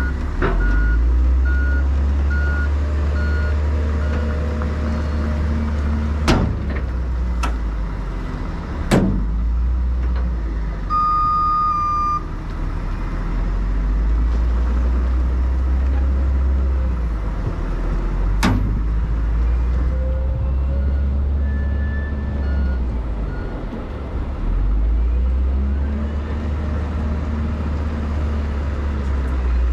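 Heavy truck diesel engine running, its revs rising and falling in stretches, with a backup alarm beeping for the first few seconds and again about twenty seconds in. One longer beep comes about eleven seconds in, and a few sharp clanks sound along the way.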